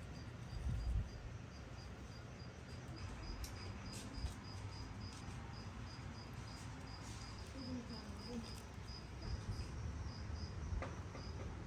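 A cricket chirping steadily in short high-pitched pulses, about four a second, over a faint low rumble.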